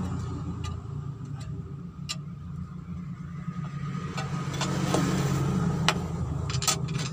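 A steady low drone of an engine or motor running, with a few sharp metallic clicks from hands working the loosened injector pipe fittings of a diesel engine.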